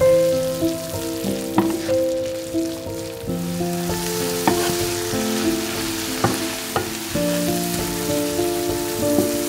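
Shredded cabbage and carrots sizzling in a frying pan as a wooden spatula stirs them, with a few sharp knocks of the spatula against the pan. Background music with held notes plays throughout.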